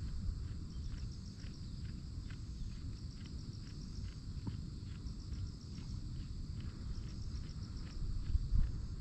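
Tokara goats chewing their cud: a steady rhythm of soft chewing clicks about twice a second. Insects trill steadily high above, over a low wind rumble.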